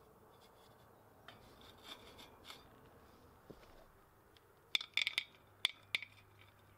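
A clay bowl is set down on a wire kiln grill with a light scrape and tick. A little later a handful of small clay balls is dropped into a clay bowl, a quick cluster of sharp clicks and rattles.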